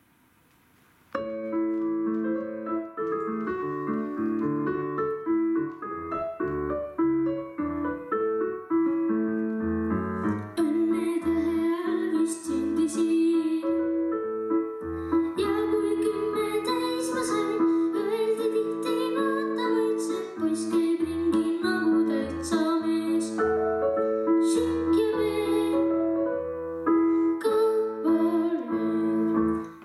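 A piano-led backing track starts about a second in, and a child begins singing over it about ten seconds in.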